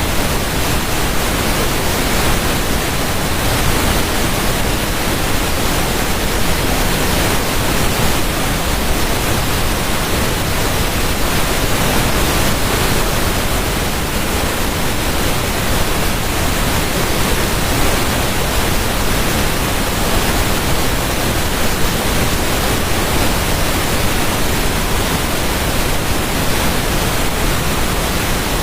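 Steady rushing water, like a waterfall: an even, unbroken hiss with no splashes or changes.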